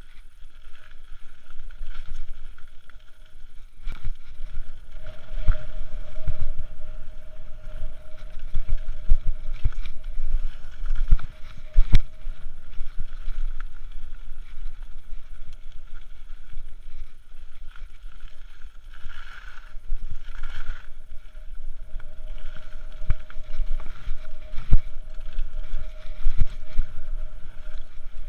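Mountain bike descending a rough gravel and dirt trail: tyres rumbling over the surface, the frame and parts rattling and knocking sharply over bumps, with wind buffeting the microphone. A steady whirring tone runs under it for much of the descent.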